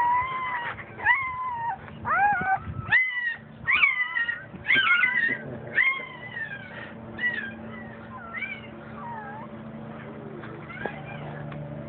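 Newborn puppies crying: a run of short, high-pitched cries that rise and fall in pitch, about one a second, growing fainter after about six seconds.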